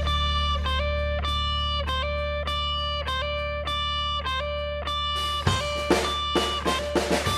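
Background music: picked electric guitar notes changing about twice a second over a held low bass note. About five and a half seconds in, the bass note stops and the guitar turns to quicker, busier strokes.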